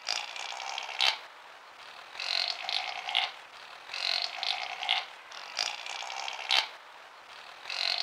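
Chamois calling: a noisy, hissing call about a second long, repeated about five times at intervals of roughly a second and a half to two seconds. Some calls end in a sharp click.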